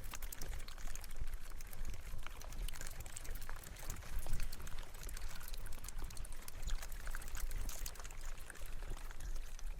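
Mountain bike riding over a rough trail: a continuous crunch and hiss from the tyres on loose ground, with many small clicks and rattles and a steady low rumble underneath.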